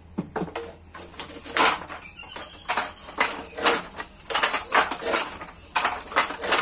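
Wooden handloom weaving cloth: a rhythmic run of sharp wooden clacks and knocks from the shuttle and the beater, about two a second in uneven groups.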